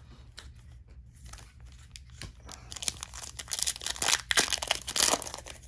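Trading-card pack wrapper crinkling and tearing open, loudest from about halfway through for a couple of seconds; light handling ticks before that.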